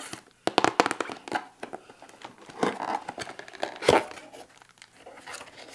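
A cardboard diamond-painting kit box being opened by hand: the end flap is worked loose, with irregular tearing, crinkling and scraping of the packaging. The crackles are busiest in the first second, and there is a sharper knock about four seconds in.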